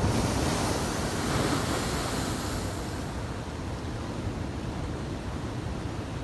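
Heavy storm waves from an approaching typhoon breaking against a harbour breakwater. A loud hissing rush of breaking water comes in the first three seconds, then settles to a steady surf and wind rumble.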